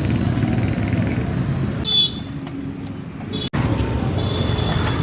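Steady low vehicle rumble that quietens for about a second and a half after two seconds in, broken by a sudden cutout about three and a half seconds in.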